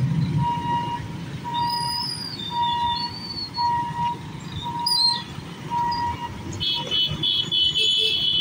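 Level-crossing warning beeper sounding a steady beep about once a second, over motorcycle engines idling and revving; the beeping stops about six seconds in and a higher, shrill steady tone sounds to the end.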